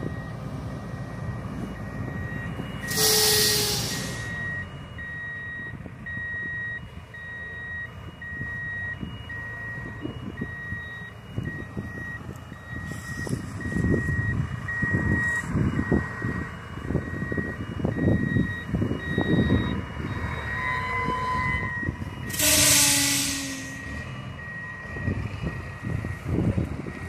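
Farm tractor's diesel engine running while a reverse alarm beeps steadily, as the tractor backs a loaded sugarcane trailer toward another for coupling. Twice, about three seconds in and again near the end, there is a loud hiss of about a second.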